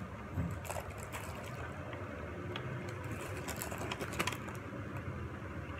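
Faint steady low hum with a few light clicks and taps scattered through it.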